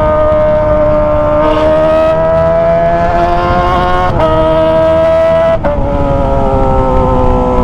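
Kawasaki ZX25R's 249 cc inline-four running at high revs through a Toce aftermarket exhaust. Its pitch climbs slowly with two brief breaks, then falls steadily from about two-thirds of the way through as it comes off the throttle.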